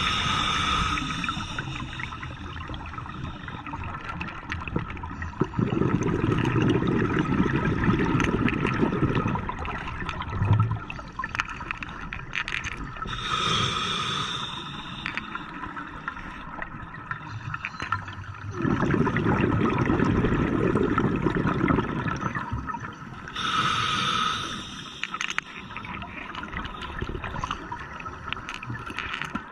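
Scuba diver breathing underwater through a regulator in a slow, even cycle about every ten seconds: three short hissing inhalations through the demand valve, and between them two longer, low rushes of exhaled bubbles.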